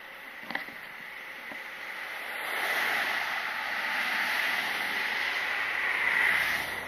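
Cars driving past on the road: a rising hiss of tyres on asphalt that builds from about two seconds in and swells again near the end.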